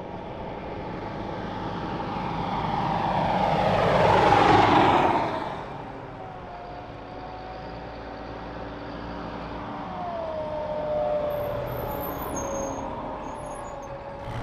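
A column of wheeled armoured vehicles driving along a road. One passes close about four to five seconds in, getting louder and then falling in pitch as it goes by. After that comes a steadier, quieter engine and tyre sound from the vehicles still approaching, with a held whine that drops slightly in pitch about ten seconds in.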